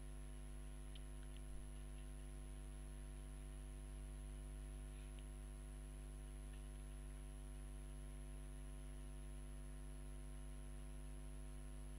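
Steady low electrical hum, like mains hum, built of many evenly spaced tones, with a thin high-pitched whine above it.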